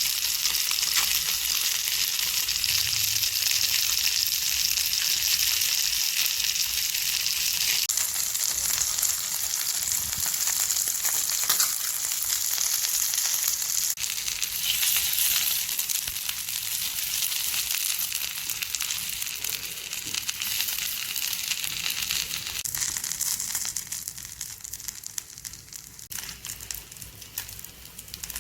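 Spiced chicken sizzling on a grill pan: a steady hiss with fine crackles, which becomes quieter and patchier about four seconds before the end.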